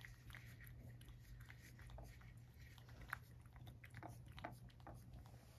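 A cat licking and chewing at a nearly empty ceramic plate: faint, irregular wet clicks, one sharper click about three seconds in, over a low steady hum.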